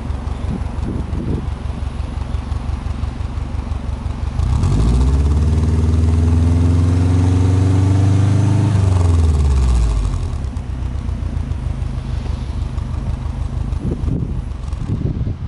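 Subaru Impreza WRX STi's turbocharged flat-four (boxer) engine heard at the exhaust. It idles, is revved once about four seconds in, held at higher revs for about four seconds, then drops back to idle.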